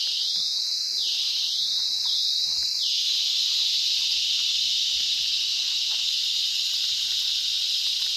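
Water poured onto fish on a hot grill, hissing into steam: three squealing hisses that rise and then fall away in the first three seconds, over a steady high hiss.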